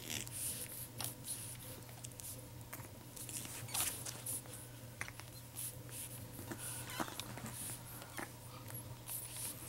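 Pug puppies scrabbling and nuzzling on fleece bedding and newspaper: scattered soft scratches and rustles over a steady low hum.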